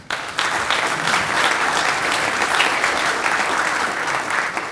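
Audience applauding: many people clapping together, starting suddenly and holding steady, then beginning to die away near the end.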